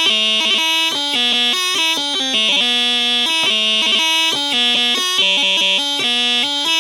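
Bagpipe chanter without drones playing a slow pipe tune, a single reedy melody stepping from note to note.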